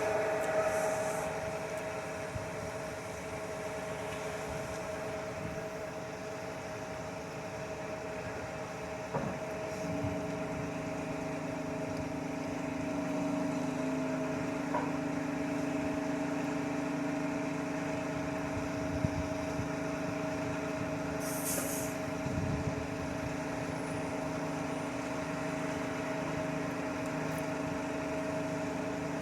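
Concrete mixer truck's diesel engine running steadily. About a third of the way through a second, lower steady tone joins in, and there is a brief hiss of air about two-thirds of the way through.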